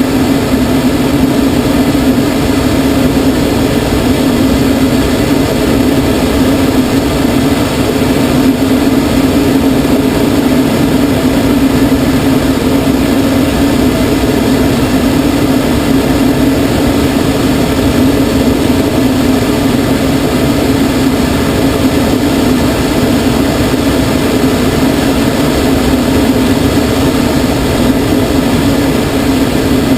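Steady rush of air over an unpowered glider in gliding flight, heard from inside the cockpit as a loud, even hum.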